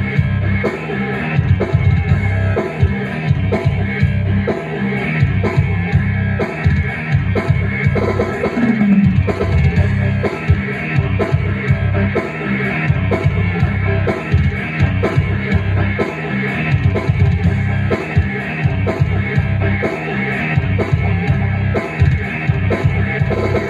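Rock-style music with a drum-kit beat, played on a Technics SX-KN7000 arranger keyboard.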